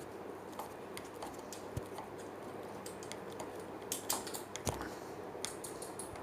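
Screwdriver tightening the screws of a door knob set, with scattered small metal clicks and scrapes, a few sharper ones about four seconds in.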